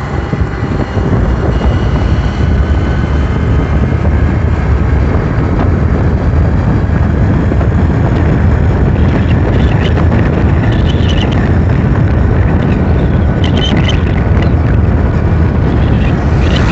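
Wind buffeting the microphone over the steady engine and road noise of a two-wheeler riding at speed on a highway, with a few faint crackles about two-thirds of the way in.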